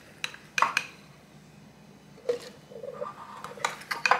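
A spoon knocking and scraping against a bowl as roasted chillies, shallots and garlic are tipped into a plastic blender jug, with soft thuds as they land. A few separate clinks, then a quick cluster of knocks near the end.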